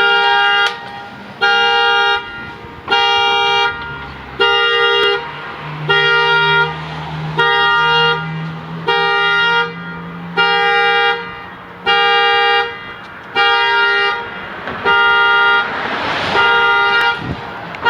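Car alarm going off, the car's horn blaring in a steady pulse of short blasts, about one every second and a half.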